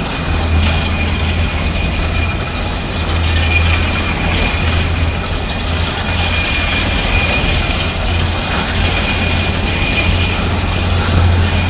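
Loaded yellow engineering-train hopper wagons rolling slowly past, with a steady low rumble and a thin, steady high-pitched whine running under it.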